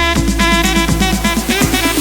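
Background music: an instrumental track with a steady beat and a quick repeating bass figure.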